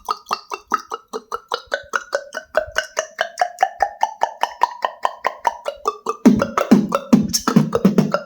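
Beatboxer imitating water drops with the mouth: a rapid, even run of hollow popping clicks, about five a second, whose pitch slides gradually lower, turning into deeper, louder pops about six seconds in.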